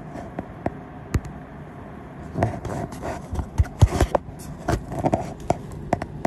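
Handling noise from a phone being turned around on its holder: a string of clicks, knocks and scraping as fingers move over the phone and mount, busiest from about two and a half to four seconds in.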